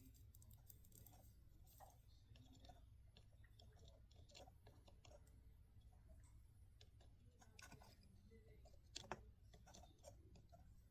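Near silence: faint, scattered small clicks and handling noises from hands working on wiring and a switch, with one sharper click about nine seconds in.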